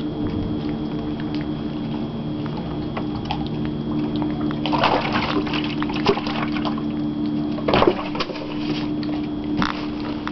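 Water sloshing and splashing, in two short flurries about five and eight seconds in, over a steady low hum.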